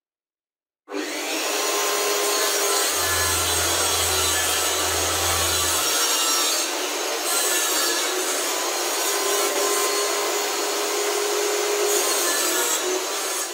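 Homemade table saw running and cutting MDF panels: a loud, steady sawing noise that starts suddenly about a second in and stops abruptly at the end, with a low hum added for a few seconds early on.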